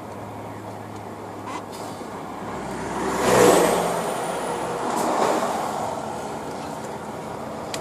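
Steady hum of a truck driving on the road, heard from inside the cab. Oncoming vehicles rush past in the other lane: a loud pass that swells and fades about three and a half seconds in, and a smaller one about five seconds in.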